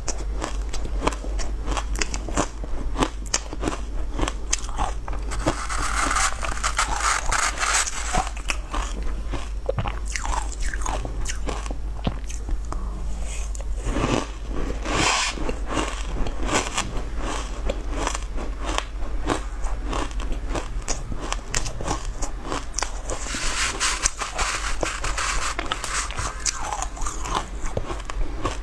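Close-miked crunching and chewing of spoonfuls of shaved ice topped with green powder: a dense, continuous run of crisp crackles and bites.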